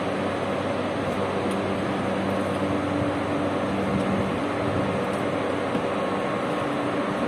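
A steady mechanical drone with a low, even hum that does not change.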